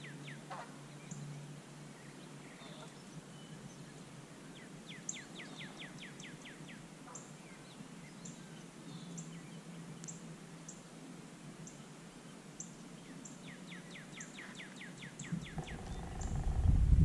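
Wild songbirds calling: a rapid trill of quick falling notes, heard twice, over thin high chips that repeat about once a second. Near the end a low rumble swells and grows loud.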